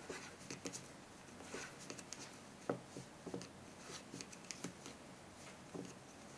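Wooden knitting needles clicking lightly as stitches are worked, in faint, irregular ticks with the soft handling of the wool.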